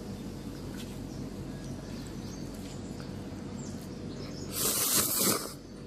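A steady low hum, with a loud rustle lasting about a second near the end.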